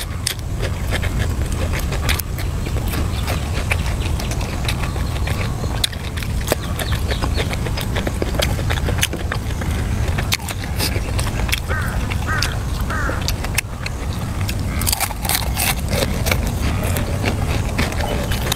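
Close-miked eating: a person chewing and crunching crisp food, with many small clicks and crunches over a steady low rumble. About twelve seconds in, three short quack-like calls sound in the background.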